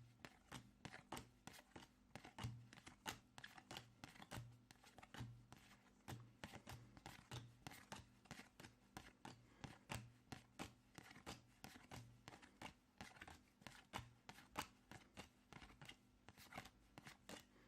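Trading cards being flicked through and laid down one at a time: faint, quick card clicks, about three or four a second.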